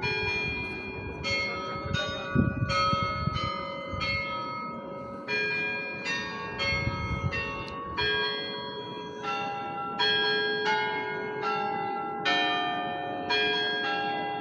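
Tuned cathedral bells, those of the Peter and Paul Cathedral, playing a slow tune. Bells of different pitches are struck one after another, roughly one to two notes a second, and each note keeps ringing as the next is struck.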